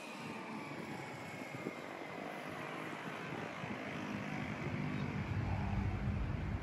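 KiHa 183 diesel railcar train approaching with its diesel engines running: a deep rumble that grows steadily louder, with a high whine slowly falling in pitch.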